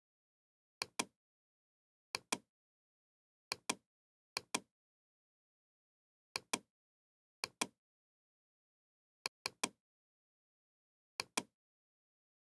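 Computer mouse clicking: about eight quick pairs of sharp clicks at uneven intervals, with dead silence between them.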